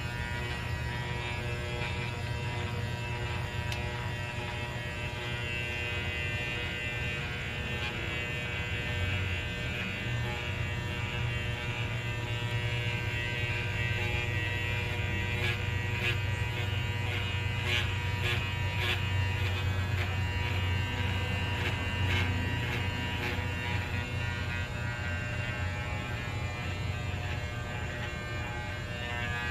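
Electric hair clippers running with a steady buzz as they shave a small dog's coat, with a few faint ticks midway through.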